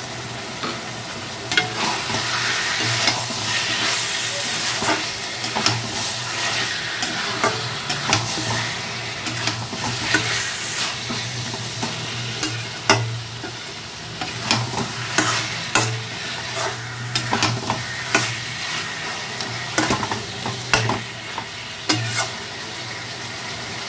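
Marinated chicken frying in hot oil with spices, sizzling steadily, while a spatula stirs and scrapes through it in repeated strokes.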